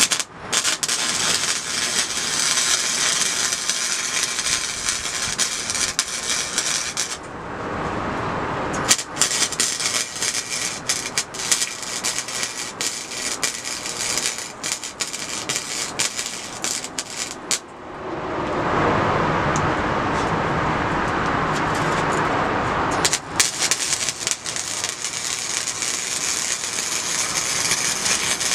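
Wire-feed welder crackling as it lays a bead on a steel exhaust pipe, in three runs with pauses about 7 seconds and 18 seconds in; a steady rushing hiss fills the pauses.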